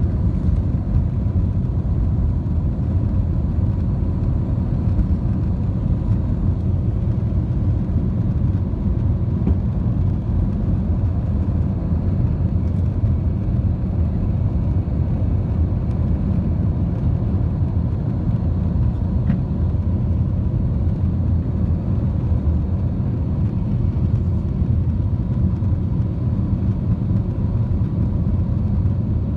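Airbus A321 jet engines at takeoff power heard inside the cabin as the airliner lifts off and climbs: a loud, steady low rumble with a faint steady tone above it.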